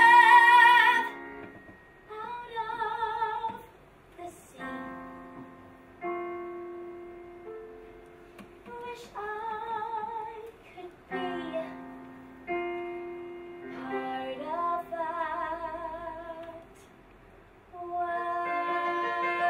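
A woman singing slow, separate phrases with vibrato over sparse piano chords. The music drops to a soft passage about a second in and swells louder again near the end.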